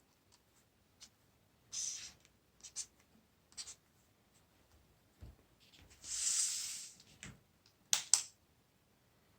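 Small handling sounds of straightened paper clips and a ruler on a work surface: scattered light clicks and short scratches, one longer scratch past the middle, and two sharp clicks close together near the end, the loudest.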